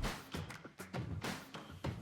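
Background music with a steady, percussive beat.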